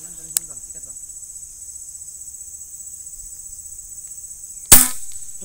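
Steady high-pitched insect chirring throughout; about 4.7 s in, one sharp crack of a PCP air rifle shot, the loudest sound, that hits the bird.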